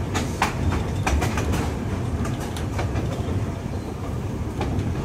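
Vintage electric streetcar running along its track: a steady low rumble from the moving car, with clusters of sharp clicks and clatter from the wheels on the rails.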